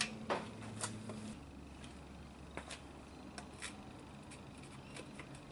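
Light clicks and taps of hands handling a motorcycle headlight shell and its wiring. The two sharpest come at the start, and lighter ticks follow every so often. Under them is a faint steady hum that drops lower about a second in.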